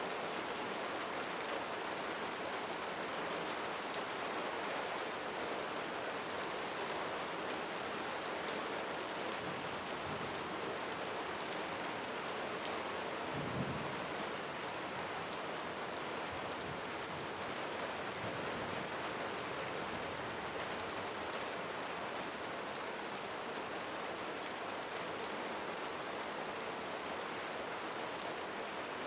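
Steady rain falling on leaves, with scattered individual drops ticking through the even hiss. A brief low thud sounds about halfway through.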